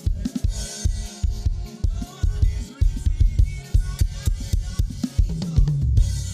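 Live band playing an instrumental groove: drum kit with a steady kick drum, snare and cymbals over a bass line.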